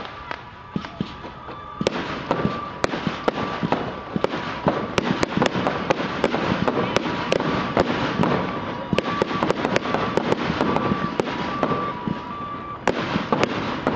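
Aerial fireworks going off in quick succession: many sharp bangs and crackles over a continuous rumbling wash. The bangs are sparse for the first two seconds, then come thick and fast.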